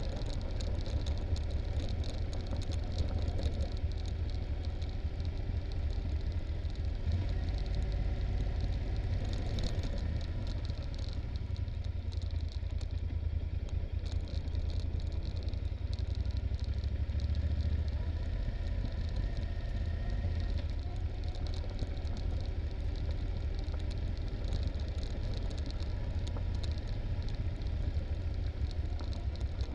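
Yamaha Super Ténéré parallel-twin motorcycle engine running at low road speed on a rough gravel descent. A steady deep rumble is overlaid with constant rattling and clatter from the bike jolting over the bumps.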